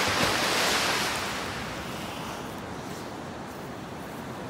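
Surf washing up over wet sand: a loud hiss that starts suddenly and fades over about two seconds into a steady wash of surf.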